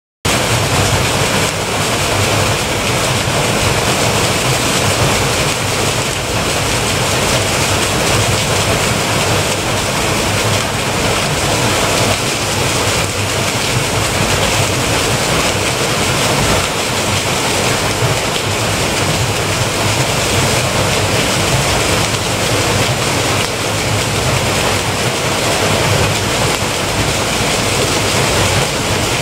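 Water splashing and pouring off a turning wooden water wheel: a loud, steady rushing.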